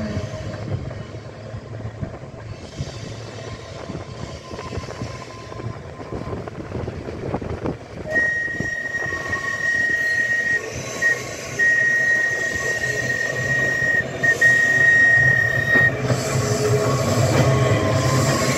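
Manx Electric Railway tram and open trailer approaching along street track and passing close by, its running noise growing louder near the end. A steady high warning tone sounds for about eight seconds in the middle, with a few short breaks.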